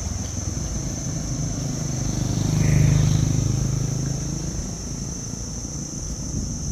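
Low rumble of a motor vehicle engine passing, swelling to its loudest about three seconds in and then fading, over a steady high-pitched whine.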